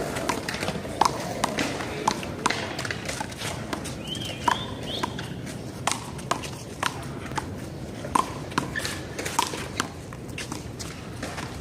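Handball rally: a rubber handball smacking against hands and the wall again and again at an uneven pace, with footsteps on the court. There is a brief high squeak about four seconds in.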